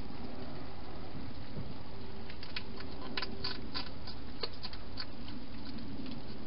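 Wild hedgehog eating at a bowl in a plastic feeding box: a run of sharp chewing clicks and crunches for about three seconds midway, over a steady hiss.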